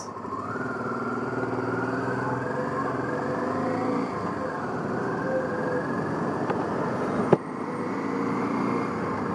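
Honda Africa Twin motorcycle engine pulling away and accelerating, its pitch rising over the first couple of seconds before it settles into steady running. A single sharp click comes about seven seconds in, followed by a brief dip in level.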